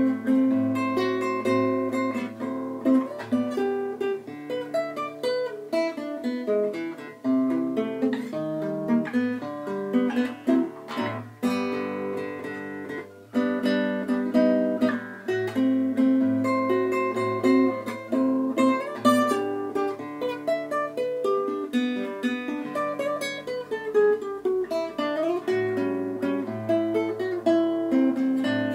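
Nylon-string classical guitar played solo, fingerpicked, with a melody over a bass line.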